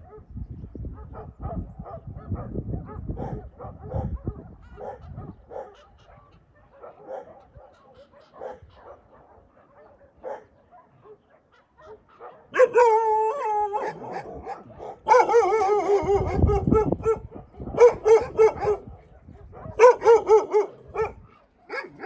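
A dog whining and yelping in high, wavering cries, about five bursts of one to two seconds each, starting about halfway through; before that only faint low rumble and small knocks.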